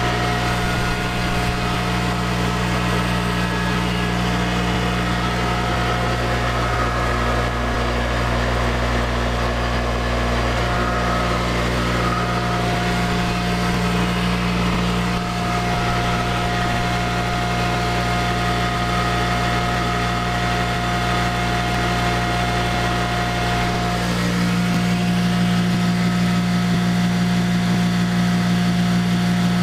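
Imperial P56 electric motor, converted to asymmetric pulsed drive, running steadily at about 3600 RPM while turning a generator head: a noisy, steady hum with a high whine over it. About 24 seconds in, the whine drops away and the hum gets a little louder.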